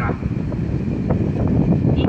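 Wind buffeting a phone's microphone: a loud, uneven low rumble. The freight train has pulled far away.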